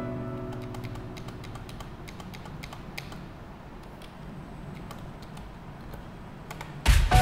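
Typing on a computer keyboard: a run of irregular keystroke clicks. Background music fades out at the start and comes back in loudly just before the end.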